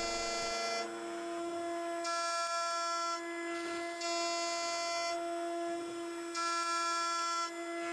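CNC milling spindle running at a steady high pitch while an end mill takes repeated facing passes over an aluminium block. Roughly every two seconds the sound turns brighter and a little louder for about a second as the cutter bites into the metal, then eases off between passes.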